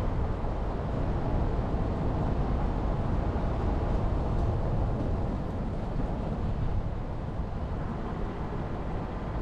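Jeep Renegade driving along a mountain forest road: a steady, low rumble of engine and road noise with no marked changes.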